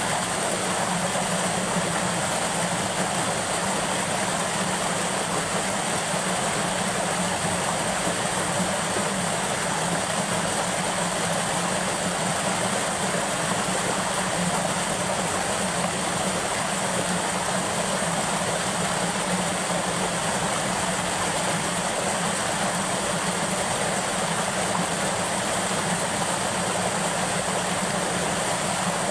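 Water pouring over a small dam's spillway ledge, a steady rushing noise.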